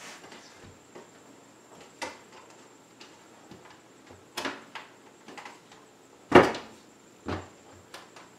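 Irregular knocks and bumps of a glass window pane being pushed by hand and seated into its frame, the loudest about six and a half seconds in.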